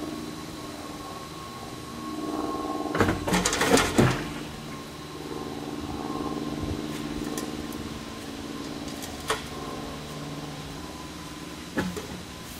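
An engine running steadily in the background. About three seconds in there is a loud cluster of knocks and clatter, and single sharp knocks come near the middle and near the end.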